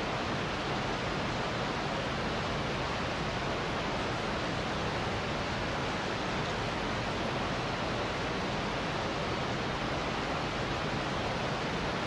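Gullfoss, a large two-tiered waterfall on a glacial river: the steady, even rush of heavy falling water.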